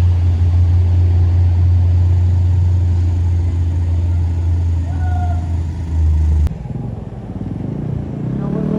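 Large vehicle's engine running with a loud, steady low drone that cuts off abruptly about six and a half seconds in, after which a quieter engine is heard.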